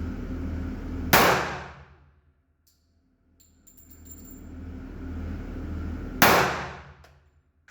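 Two shots from a .40-calibre handgun, about five seconds apart, each a sharp crack that rings off over about a second. A steady low hum sits underneath and drops out right after each shot.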